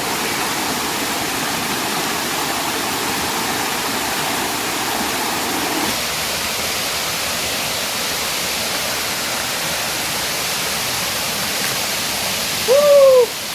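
Steady rushing of a waterfall's falling water; its deeper part thins out about six seconds in. Near the end, a short pitched call rises and falls once.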